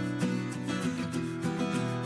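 Background music with notes changing every half second or so.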